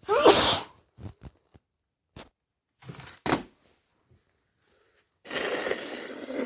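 A person sneezing once, loudly, at the start, followed by a few small clicks and short breaths. A longer rush of noise comes near the end.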